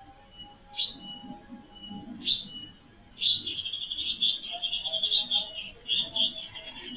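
Night-time wildlife calling: two short rising chirps, then from about three seconds in a fast pulsing high-pitched trill with lower calls under it.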